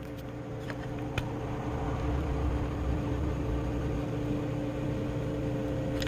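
An electric kitchen appliance running with a steady hum and a low rumble, growing louder over the first two seconds and then holding steady.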